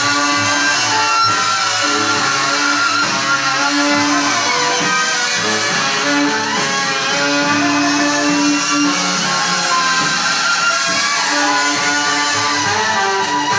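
Instrumental music led by an electric guitar playing a slow blues melody with held notes and a few sliding pitches, over a rhythm accompaniment.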